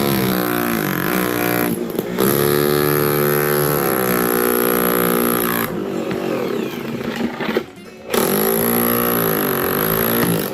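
Maximum 5/8-inch SDS Plus rotary hammer with a chisel bit hammering under ceramic floor tile to break it loose. It runs in long stretches with two brief stops, about two seconds in and about eight seconds in, its pitch sagging and recovering as it is pushed into the tile.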